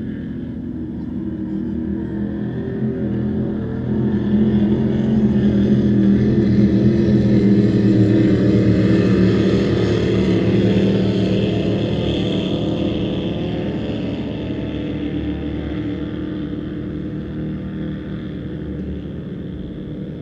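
Racing powerboat engine running flat out as the boat passes. It grows louder from about four seconds in, peaks near the middle, then fades steadily as the boat moves away.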